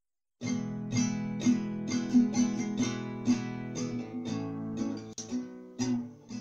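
Acoustic guitar strummed in a steady rhythm, about two to three strokes a second, starting about half a second in: the instrumental intro before the singing comes in.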